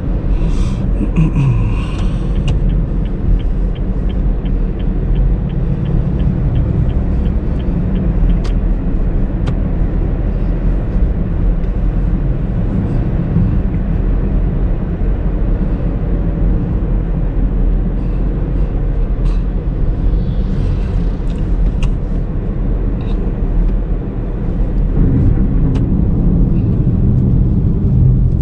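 Steady low rumble of a 2019 Honda Brio V CVT driving: its 1.2-litre four-cylinder engine and road noise, rising a little near the end. A regular light ticking, about three ticks a second, runs for several seconds near the start.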